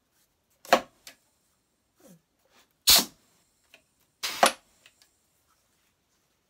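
Pneumatic bath bomb press cycling: three short, sharp hisses of compressed air from its valve and cylinder as the ram presses down on the mold and lifts back up.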